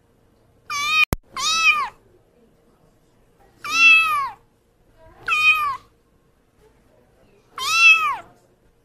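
White long-haired kitten meowing five times, in high, thin calls that each rise and then fall in pitch. A sharp click comes between the first two meows.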